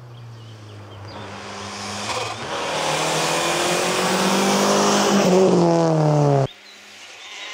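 Subaru Justy 1.3 Turbo rally car engine pulling hard: it grows louder over several seconds and its pitch climbs steeply near the end, then the sound cuts off suddenly about six and a half seconds in.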